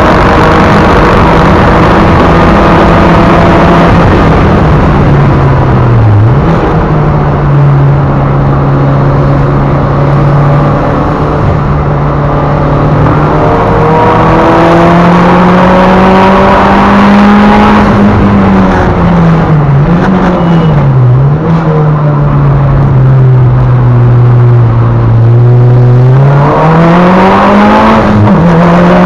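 Mitsubishi Lancer Evolution VIII's turbocharged four-cylinder engine, heard from inside the cabin while driven hard on track. The engine note rises and falls with the revs, dipping briefly at gear changes about six seconds in and again around twenty seconds. It holds lower for a few seconds, then climbs steeply again near the end.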